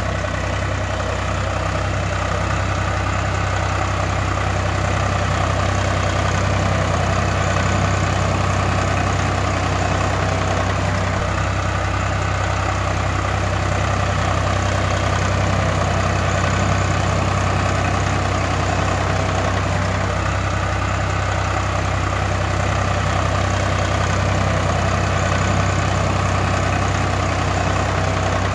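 Tractor diesel engine idling steadily with an even, rhythmic chug: an engine sound effect laid over a toy tractor.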